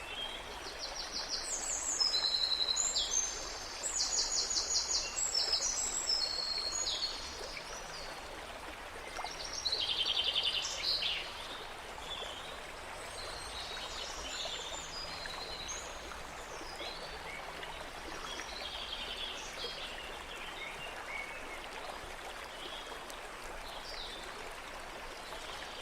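Steady rush of flowing water, like a stream, with small birds chirping in quick high trills, loudest in short spells during the first few seconds and again around ten seconds in, then fainter scattered chirps.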